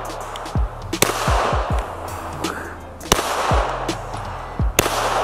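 Three pistol shots from a 9mm striker-fired handgun, about two seconds apart, each followed by a short echo off the range. A music track with deep bass hits plays underneath.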